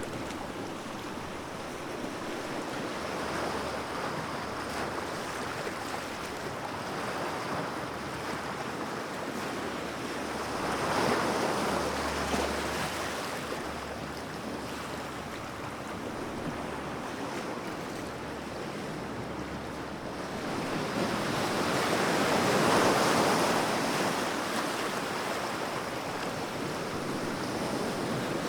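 Gentle sea waves washing onto a beach: a continuous surf hiss that swells as waves break, most strongly about eleven seconds in and again from about twenty-one to twenty-five seconds.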